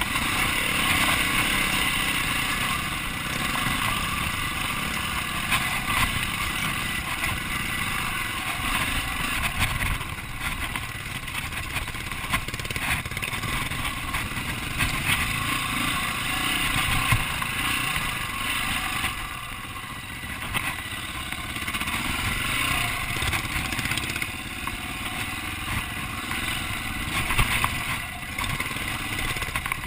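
Off-road motorcycle engine running at varying throttle over a rough rocky trail, with clatter from the bike and a few sharper knocks.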